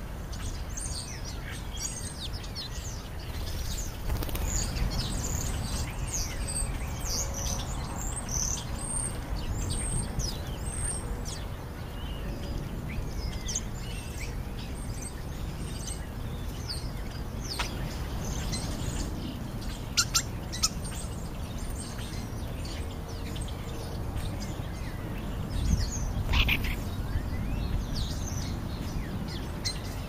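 Small birds, house sparrows and European starlings, chirping in many short high calls, thickest in the first part and sparser later, over a steady low rumble. Two sharp clicks come about two-thirds of the way through, and a brief louder noise comes near the end.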